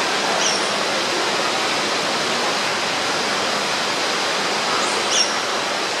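Steady rush of falling water, like a waterfall running in the indoor rainforest hall. Two brief high chirps cut through it, about half a second in and again near the end.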